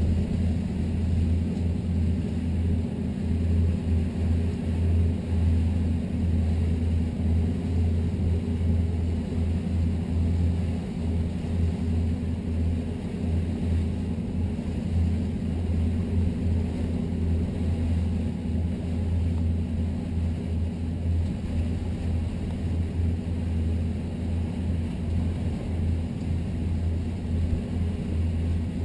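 Steady low rumble of a 1998 Sea Ray 330 Sundancer's twin engines running as the cruiser moves along at an even speed.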